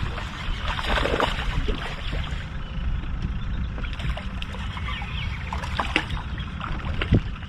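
Low steady rumble of wind and water lapping against an aluminum fishing boat's hull, with scattered light clicks and splashes while a spotted bass is reeled in to the boat.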